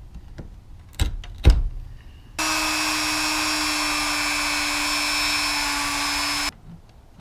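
Two knocks, then a small electric power tool runs at a steady pitch for about four seconds and cuts off suddenly.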